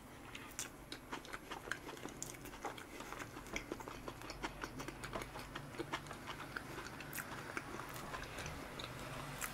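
A person chewing a mouthful of soft chocolate cream cake with closed lips, heard as faint, irregular little clicks of mouth sounds.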